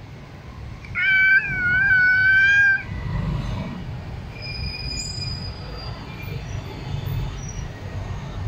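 Domestic cat giving one long, drawn-out meow about a second in, lasting nearly two seconds, over a low steady rumble.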